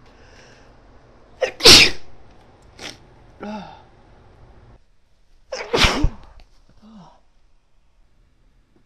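A woman sneezing twice, about four seconds apart, each sneeze led by a short catch of breath and followed by a softer sound. The sneezes are induced by tickling the inside of her nose with a clothes tag.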